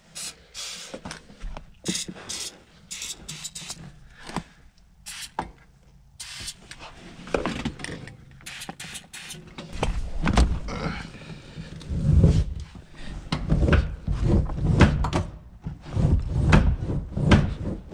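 A stiff car-seat adjuster mechanism being greased and worked by hand: scattered metal clicks and knocks, then from about halfway through, louder repeated thumps and rattling as it is forced back and forth.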